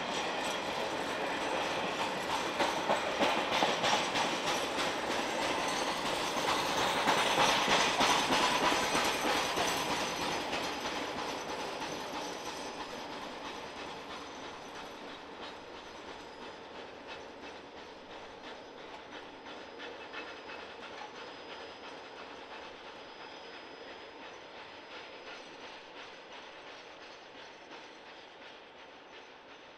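Norfolk Southern Triple Crown RoadRailer train rolling past, its wheels clicking rhythmically over the rail joints. It is loudest about eight seconds in, then fades steadily as the train draws away.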